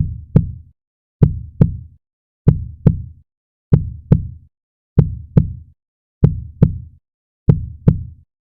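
Heartbeat sound effect: slow, deep lub-dub double thumps, a pair about every second and a quarter, seven beats in all, with dead silence between them.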